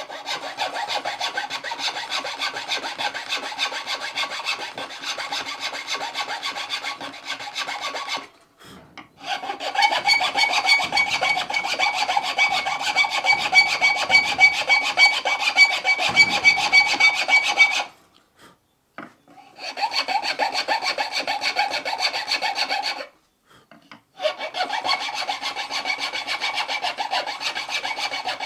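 A thin round file rasping back and forth in a slot in a wooden bucksaw arm, in quick, even strokes. The filing comes in four bouts, with three short pauses between them.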